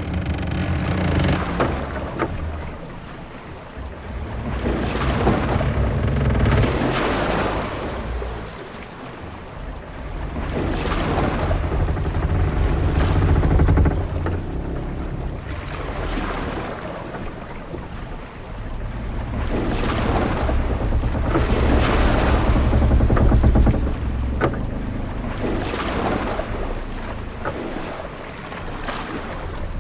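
Sailing-ship-at-sea ambience: waves washing against the hull in slow swells every five or six seconds over wind and a low rumble, with a few short knocks scattered through.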